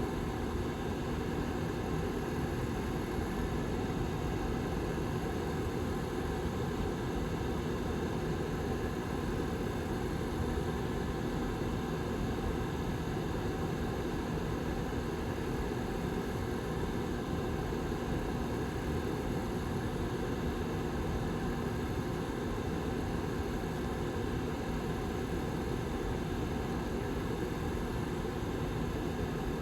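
Back fan of a Lasko 755320 tower heater running steadily: an even airy whir with a constant low hum.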